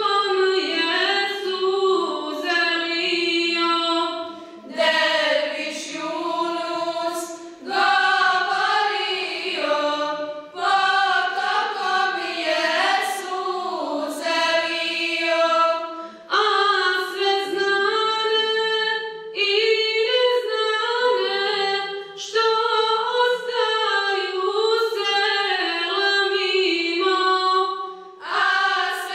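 A choir singing an Islamic devotional song a cappella, many voices together in phrases a few seconds long with brief breaks between them.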